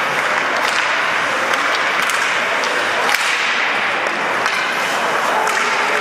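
Ice hockey play: sharp clacks and scrapes of sticks, puck and skates on the ice, several short cracks spread through, over a steady arena din.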